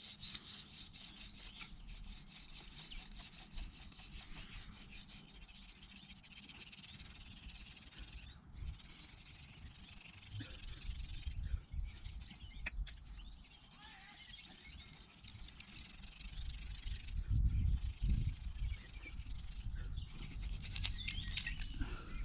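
Hand-drill fire lighting: an elder spindle spun back and forth between the palms into an ivy hearth board, wood scraping on wood in a steady rhythm as it builds hot dust toward an ember. Low thumps and rumbles come in during the second half, and birds chirp near the end.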